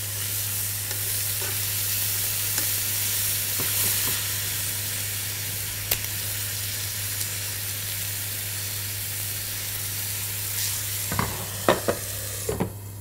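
Chicken breast pieces sizzling as they fry in a frying pan, stirred with a utensil, a steady hiss that eases a little toward the end. A few sharp knocks of metal on the pan near the end.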